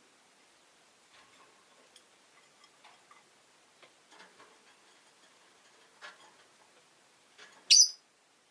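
Rosy-faced lovebird giving one short, sharp, high chirp near the end, after several seconds of faint scattered clicks.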